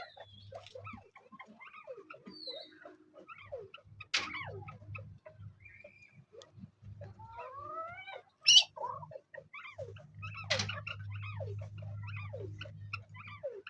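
Male chukar partridge giving a run of short clucks and chirps, some rising in pitch, as it calls in fight mode. There are a few sharp clicks, the loudest about eight and a half seconds in, and a low buzz comes and goes.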